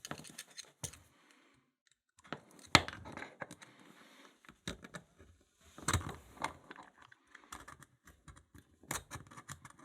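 Flat-blade screwdriver prying the retaining clip off a Mul-T-Lock cylinder: scattered small metal clicks and scrapes, the sharpest about three seconds in and again about six seconds in.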